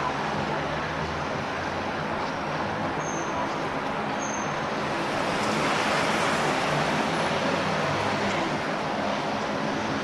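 Steady road traffic noise that swells a little about halfway through as vehicles pass, with two brief high chirps early on.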